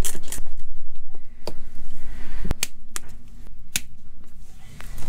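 Hand tools clicking and knocking on hose clamps and ball-valve fittings while a rubber hose is fastened to a water-heater connection: a few sharp, separate clicks scattered through, over a steady low hum.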